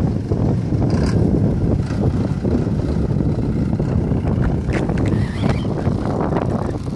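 Ford tractor's diesel engine running steadily, with a low rumble and wind buffeting the microphone.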